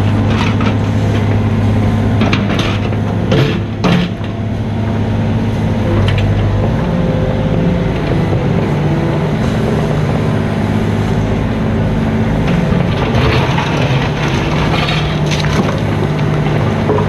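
Mini excavator's diesel engine running under work, its note stepping up partway through, with a few sharp knocks about three to four seconds in and rattling, scraping of the bucket and digging later on.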